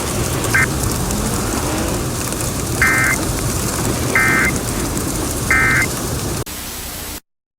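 Three short bursts of warbling Emergency Alert System data tones about 1.3 s apart, preceded by a briefer chirp, over a steady rain background: the EAS End of Message (NNNN) signal closing the tornado warning. The audio cuts off suddenly near the end.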